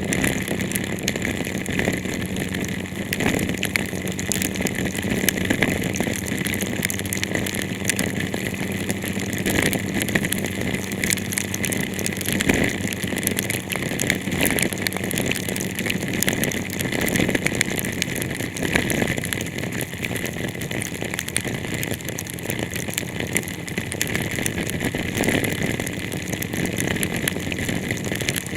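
Heavy rain pattering densely on a car's body and windscreen, heard inside the cabin over a steady low hum from the vehicle.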